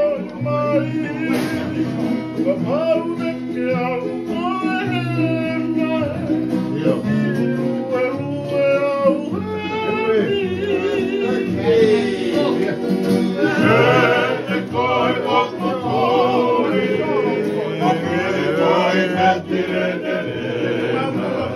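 A group of men singing a Tongan song together in harmony, accompanied by strummed acoustic guitars; the voices grow fuller about halfway through.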